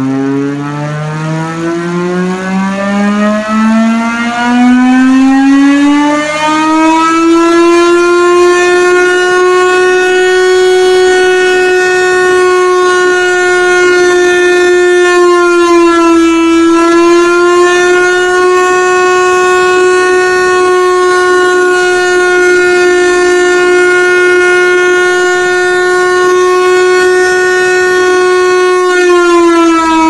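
Vintage Chrysler air raid siren, repowered with a replacement motor, winding up with a rising wail over the first several seconds, then holding a steady, loud tone. The pitch sags briefly about halfway through and drops slightly near the end.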